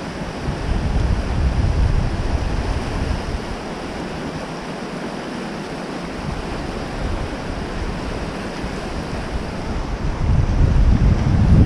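Rushing whitewater of a fast river, a steady hiss, with wind buffeting the microphone about a second in and again near the end.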